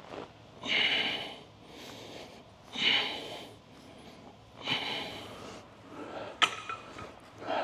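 A man breathing out forcefully with each lifting rep: three breathy blasts about two seconds apart, then a single sharp clack about six and a half seconds in and another breath near the end.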